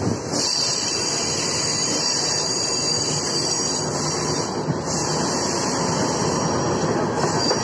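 Electric multiple-unit suburban train running, heard from on board: a steady, even noise of wheels on track and air.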